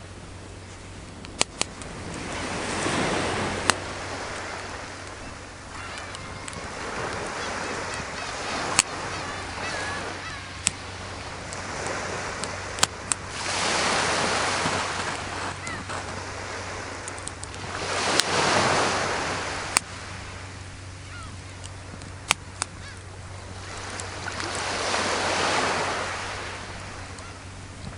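Sea waves breaking on the shore, swelling and fading every few seconds. Sharp pops and crackles from a burning wood fire come through them about a dozen times.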